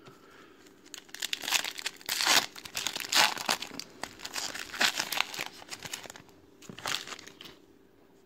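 Plastic wrapper of a Topps WWE trading card pack being torn open and crinkled by hand, a run of uneven tears and crinkles from about a second in until near the end.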